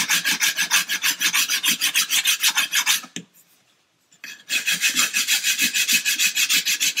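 Coarse sanding stick rubbed in quick back-and-forth strokes along the edge of a model ship's false keel, bevelling it: a rapid scratchy rasping. The strokes stop a little after three seconds in for about a second, then start again.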